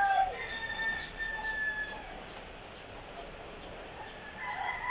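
Roosters crowing: the end of one crow at the very start, a fainter crow about a second in, and another crow starting near the end. Behind them a quick high chirp repeats about twice a second.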